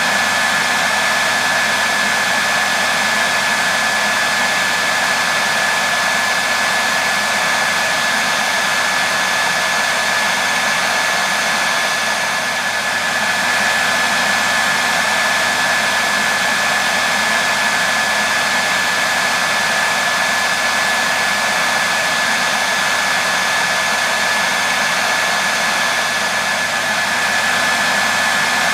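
Hair dryer running steadily, a continuous rushing of air with a steady high whine from its motor, played as white noise for baby sleep.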